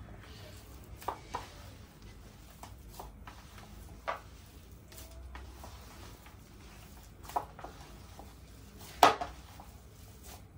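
Bowl and utensil knocks and clinks while a potato-and-vegetable mixture is mixed by hand: about five short, scattered sounds, the loudest about nine seconds in.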